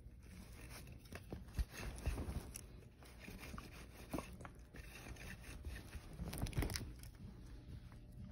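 Sticky lint roller rolled over woven sofa upholstery, its adhesive tape crackling and tearing as it peels off the fabric, in two rough bouts: about a second in and again around six seconds.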